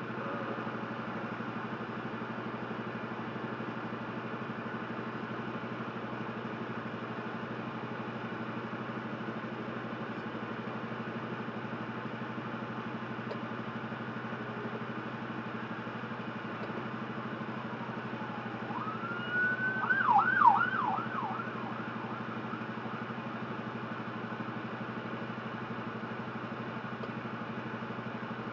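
Truck engine idling with a steady hum, heard from inside the cab. About two-thirds of the way through, an emergency vehicle siren sounds briefly: a rising wail that breaks into about six fast yelps over a second and a half, then stops.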